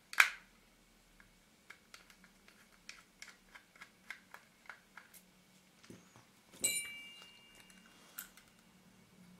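Small metallic clicks and ticks of a precision screwdriver working the tiny screws in a camera body, a few ticks a second. There is a sharp click at the start and a louder metal clink with a brief ringing tone about two-thirds of the way through.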